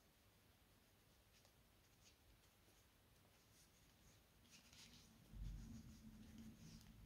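Near silence, with faint rustling and scratching of thick cotton cord drawn through stitches by a crochet hook. A low handling rumble comes in a little past halfway.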